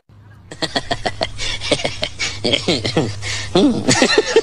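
Laughter: a quick run of short laughs with pitch sliding up and down, starting about half a second in.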